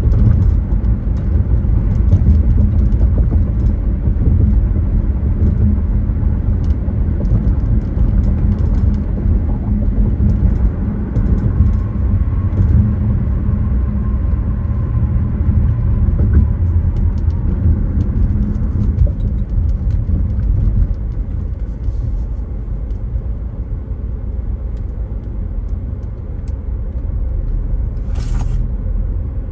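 Car driving along, a steady low rumble of engine and tyre road noise, with a brief sharp noise near the end.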